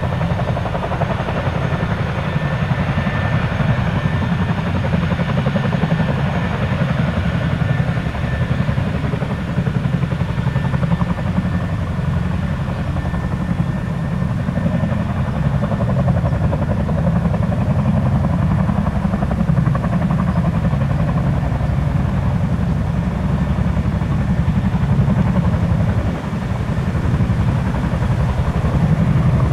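Boeing CH-47 Chinook tandem-rotor helicopter running, its two Lycoming T55 turboshaft engines driving a steady, rapid rotor chop, with a high turbine whine over it for the first several seconds. The sound dips briefly near the end.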